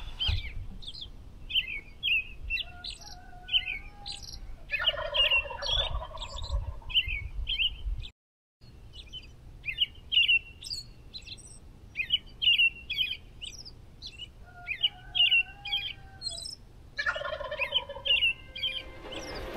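Songbirds chirping in a dawn chorus, many short high chirps overlapping. Twice, a farm fowl joins in with a longer, lower call that glides and holds. The sound cuts out for about half a second around eight seconds in.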